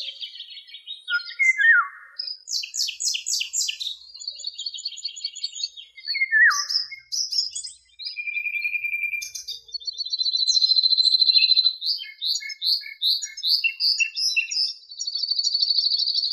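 Several songbirds singing at once, a varied woodland chorus of fast trills, quick runs of repeated notes and short falling whistles. A long steady trill comes in about ten seconds in, and another near the end.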